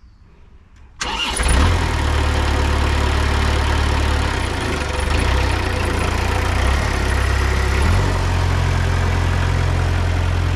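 Kubota V1903 four-cylinder diesel engine started cold after its glow plugs are heated: it fires and catches about a second in, then settles into a steady run.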